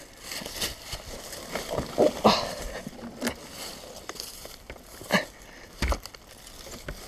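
Scattered knocks, scrapes and rustling of dry leaves as a fallen Yamaha enduro bike is handled on the forest floor, with no engine running.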